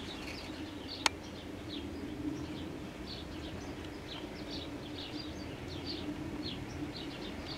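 Birds chirping faintly in the background, many short high chirps, over a low steady hum, with one sharp click about a second in.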